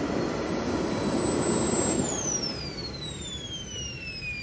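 Electric ducted fan of a model J-10 jet whining at a steady high pitch over a rush of air, then winding down: about two seconds in the whine starts falling steadily in pitch and the air rush fades.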